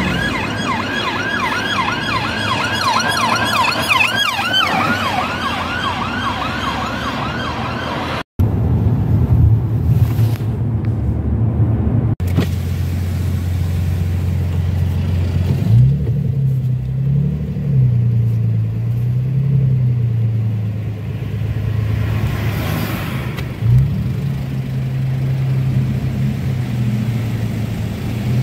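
A police car's siren on a fast yelp, about three rising-and-falling sweeps a second, fading out after about four seconds over passing road traffic. After a cut there is the low drone of a car engine idling in queued traffic, heard from inside the cabin, its pitch shifting a little now and then.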